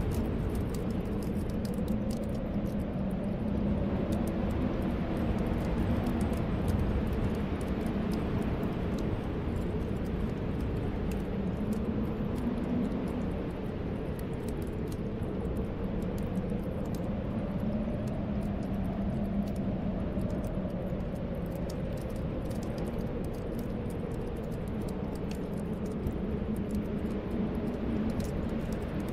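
Snowstorm wind: a steady low rush with whistling tones that slowly rise and fall, over the small, frequent crackles of a fireplace.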